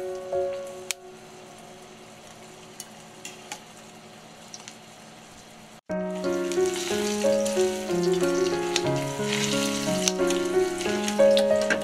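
Sliced garlic and a dried chili frying gently in olive oil over low heat, a soft steady sizzle with scattered small crackles. About halfway through, melodic background music comes in over the sizzle.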